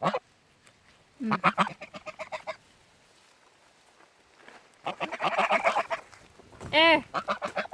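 Domestic geese honking in three short bouts with quiet gaps between, the loudest and clearest call near the end.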